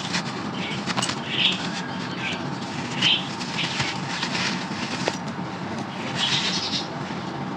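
Crunchy brown sand-clay chunks being crumbled, giving irregular gritty crunches and crackles with a few sharp snaps. The crunches come in clusters about every one to two seconds over a steady low hum.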